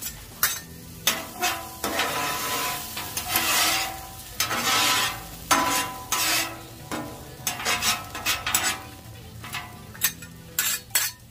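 Steel spatulas scraping and clinking on the flat steel top of a Char-Griller Flat Iron griddle as diced bacon and sausage are pushed across it, with the meat sizzling. There are longer scrapes in the first half, then shorter taps and scrapes toward the end.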